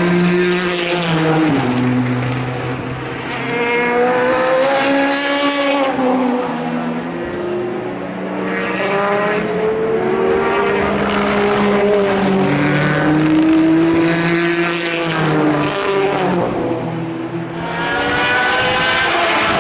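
Endurance race cars passing one after another at racing speed. The engine notes climb and then drop in sharp steps with the gear changes, swelling and fading as each car goes by.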